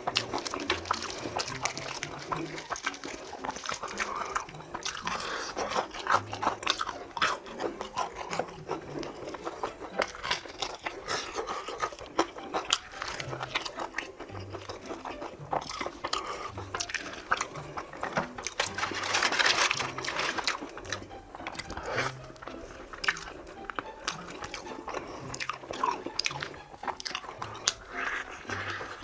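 Close-up crunching and chewing of fried chicken: a long run of crisp bites and crackling breading. It gets louder about 19 seconds in.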